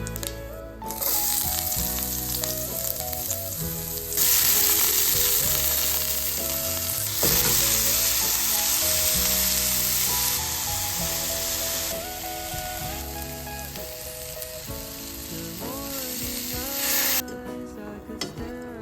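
Food sizzling in a hot frying pan, louder through the middle and cutting off abruptly near the end, over background music.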